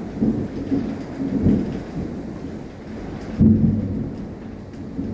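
Thunder rumbling in a series of low rolls, the loudest about three and a half seconds in, over steady heavy rain.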